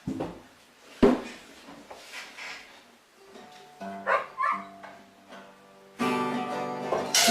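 Two sharp knocks in the first second, then plucked acoustic guitar music from about three seconds in, louder near the end.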